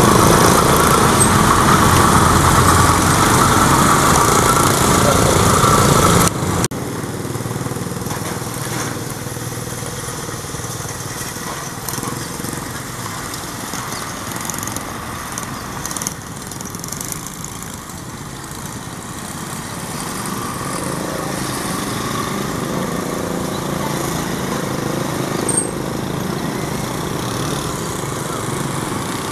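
A motorcycle engine runs loud and close for about the first six seconds, then cuts off abruptly. After that a quieter, steady engine sound follows, a KAI diesel-electric locomotive running, which grows somewhat louder from about twenty seconds in.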